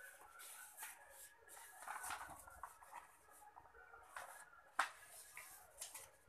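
A sheet of printer paper rustling faintly as it is handled, lifted and turned over on a hard floor, with one sharp click nearly five seconds in.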